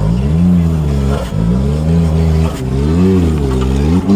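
Small kei-class off-road vehicle engine revving up and down repeatedly under load. Its pitch swells and sags roughly every second and a half, with a short knock at a couple of the dips.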